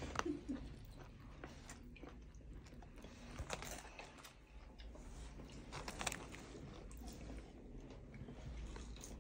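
Faint sounds of people eating: chewing and biting, with scattered light clicks.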